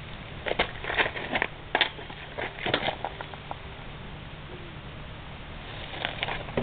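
A quick, irregular run of light knocks and clicks, then a few more near the end: a moped engine and its plastic fan cowling being handled against the frame.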